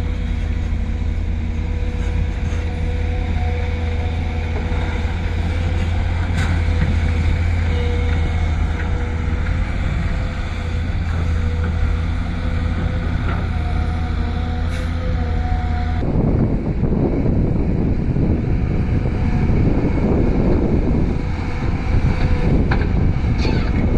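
Heavy diesel machinery running steadily with a constant engine hum. About two-thirds of the way through, the sound changes abruptly to a rougher, noisier rumble.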